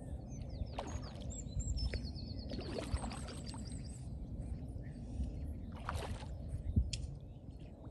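Trout splashing at the lake surface now and then, over a steady wind rumble on the microphone. Small birds call, with a quick run of high chirps in the first half.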